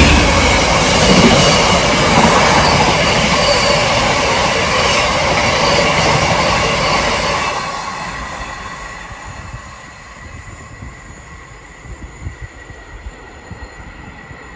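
Freight train passing through the station, a loud rumble of wheels on rail that fades away after about eight seconds.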